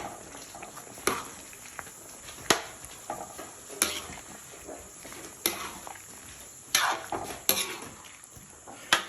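A spoon stirring curry in a cooking pot, knocking against the pot now and then, with a steady faint hiss beneath.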